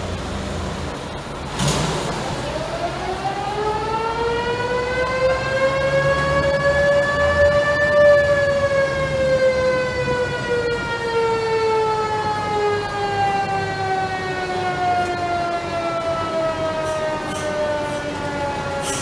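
A mechanical siren winding up after a clunk near the start: one whining tone that rises for about six seconds, peaks, then slowly falls away as it coasts down. Beneath it are the low rumble of old military truck engines running.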